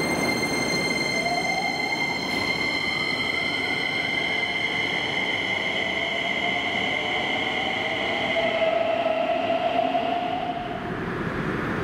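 Keisei electric train's traction motors and inverter whining at low speed in the underground station, with steady high tones and one tone rising in pitch early on. The whine dies away near the end.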